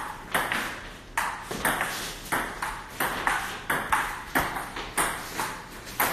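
Table tennis ball in a steady rally, struck back and forth by rubber paddles and bouncing on the table: a string of sharp clicks, about two or three a second, each ringing briefly in the room.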